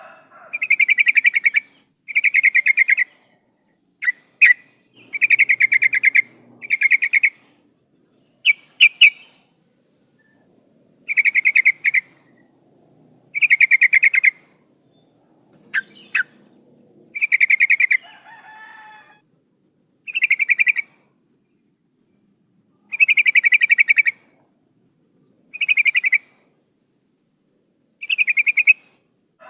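Yellow-vented bulbul (trucukan) calling: about a dozen short, fast-pulsed chattering phrases, each about a second long, repeated every one to three seconds, with a few sharp clicks in between. It is given as a female's call, used as a lure to set males singing.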